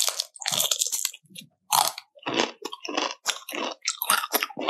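Close-miked crunching and chewing of crispy fried chicken skin: a quick run of crisp bites, about three crunches a second.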